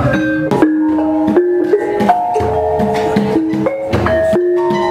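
Indonesian gamelan being played: bronze kettle gongs and metal-keyed metallophones struck with mallets, each note ringing on at a clear pitch, about three new notes a second over a low throbbing hum.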